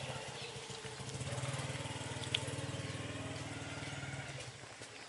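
A small engine running steadily, dying away about four and a half seconds in, with one short click a little past two seconds.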